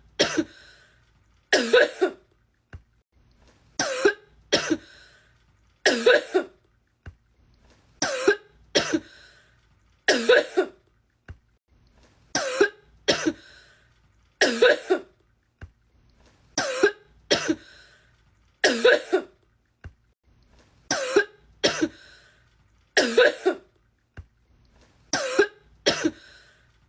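A woman coughing in a fit, two harsh coughs at a time, the same pair repeating at even intervals of about two seconds as an edited loop.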